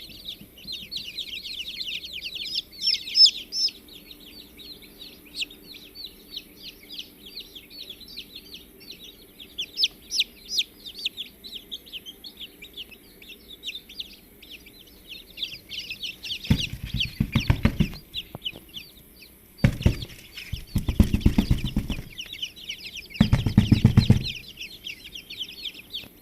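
Many small birds chirping in a dense, continuous chatter. About two-thirds of the way in come four short bursts of low rumble.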